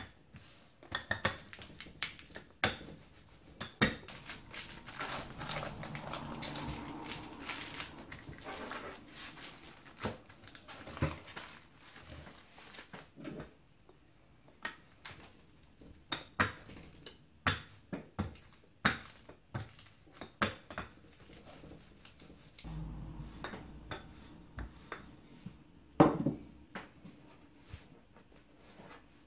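Wooden rolling pin rolling over a slab of butter sealed in a plastic zip-lock bag, flattening it into a sheet for laminating croissant dough. Repeated sharp knocks and taps of the pin on the countertop, with stretches of rolling and plastic rustle a few seconds in and again near the end, where one knock is the loudest.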